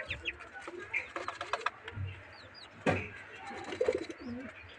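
Caged young chickens and quail giving short, high chirps and peeps, with scratching and pecking in a tub of sand. One sharp knock comes about three seconds in.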